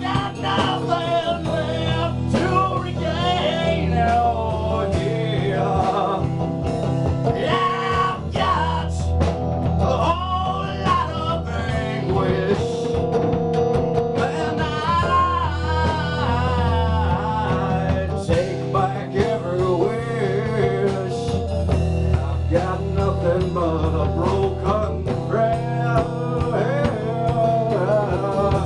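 Music: a man singing a song into a microphone over an electric guitar, with percussion hits keeping time.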